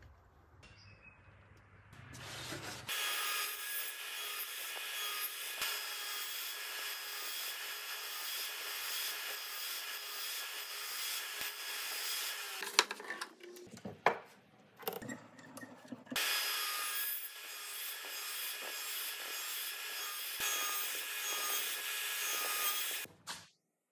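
Overhead saw with a dado blade cutting half-lap notches across a wooden board: a steady, even whine and rasp of the cut in two long stretches. Between the stretches there are a few seconds of knocks and handling, and the sound cuts off suddenly near the end.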